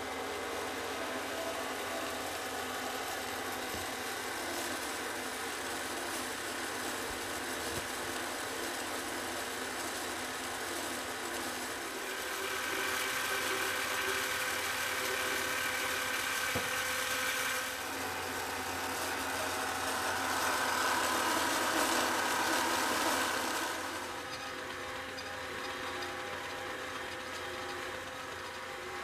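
Claxton Rapier hydraulic bandsaw rig running, a steady mechanical hum from its hydraulic drive. It grows louder twice for several seconds as the hydraulics work harder while the clamping wedges are activated.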